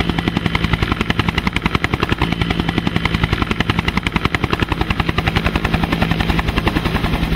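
Helicopter rotor chopping with a steady rapid beat of about ten blade slaps a second, over a steady engine hum.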